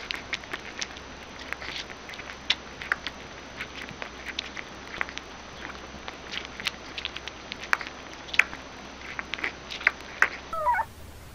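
Newborn puppy suckling at a baby bottle: quick, irregular wet clicks and tiny squeaks. Near the end, a short wavering squeaky whine from a puppy.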